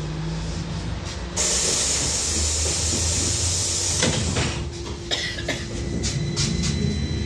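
Pneumatic doors of a VMZ-5298.01 trolleybus closing: a loud hiss of air lasting about two and a half seconds ends in a thump as the doors shut about four seconds in. A few clicks follow, and a steady high whine from the drive starts near the end as the trolleybus pulls away.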